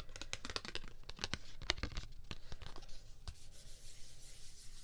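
Fingernails tapping and scratching on a thin cardboard business card in a quick, irregular run of crisp clicks, giving way a little past halfway to a softer steady rubbing sound.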